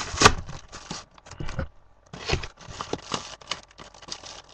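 A mail package being torn and pulled open by hand: short irregular bursts of tearing, crinkling and scraping of paper or plastic.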